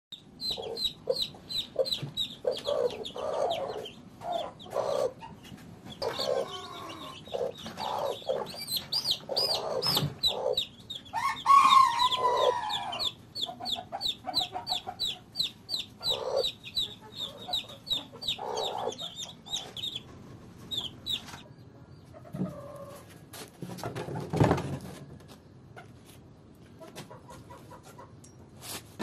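Newly hatched chicks peeping rapidly and high-pitched over the low clucking of broody hens; about halfway through a louder, drawn-out call stands out. The peeping stops about two-thirds of the way through, leaving scattered knocks.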